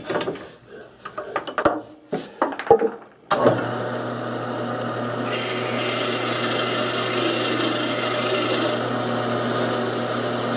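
Clicks and knocks as a drill chuck with a quarter-inch bit is fitted in a small lathe's tailstock, then the lathe is switched on about three seconds in and runs steadily with a hum. About two seconds later a higher whine joins as the bit is fed into the spinning wooden wheel blank.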